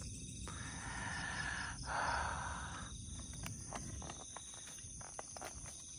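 Night insects, crickets among them, trilling steadily. A soft rustling runs for a couple of seconds near the start, and a few faint clicks follow.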